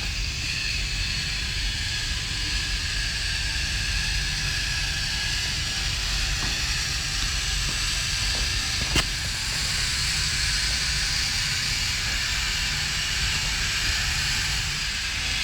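K'Nex Turbo Jet's battery-powered toy motor running steadily in forward, with a single sharp click about nine seconds in.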